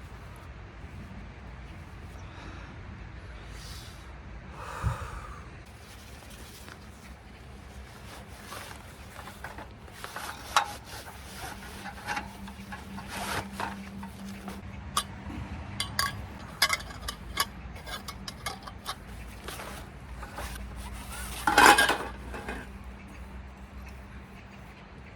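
Cooking utensils and dishes being handled: scattered clinks and scrapes, thickest in the second half, with one louder clatter near the end.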